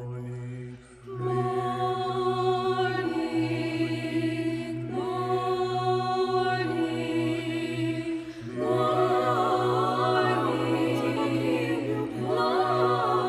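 Mixed choir singing held chords. The choir drops out briefly near the start and comes back in about a second in. From about eight seconds in, a higher solo voice line with a wavering vibrato rises over the choir.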